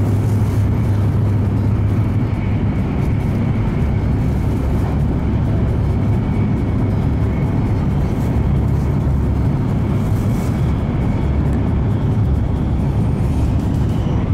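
Steady running noise of a Hokuriku Shinkansen (E7/W7 series) train at speed, heard inside the passenger cabin: a constant low rumble with a faint steady high tone above it.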